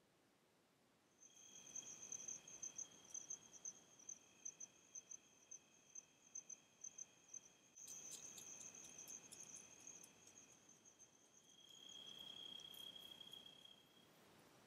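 Faint night-time insect chorus: several insects sing steady high trills at different pitches, one pulsing rapidly. A run of light ticks joins in about eight seconds in.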